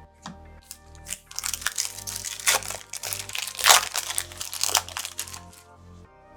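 Foil wrapper of a Topps Chrome trading-card pack crinkling and crumpling as it is opened and handled, a dense crackle lasting about four seconds with its loudest crunch past the middle. Background music plays underneath.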